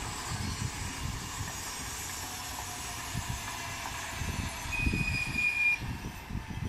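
An ED250 Pendolino electric multiple unit passing at speed, making a steady rushing hiss that thins out near the end. A brief, steady high tone sounds for about a second roughly five seconds in, over low gusty rumbling.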